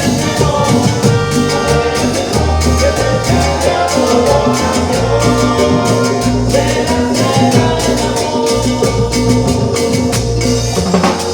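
Salsa-style Latin band music with a steady bass line and percussion, from a live band performing.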